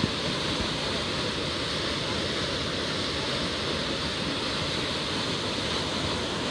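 Waterfall pouring steadily into a rock gorge, a constant rushing of falling water.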